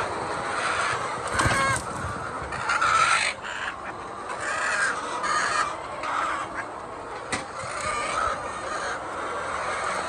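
A crowded flock of laying hens clucking and squawking in a steady din, with louder harsh calls about a second and a half and three seconds in.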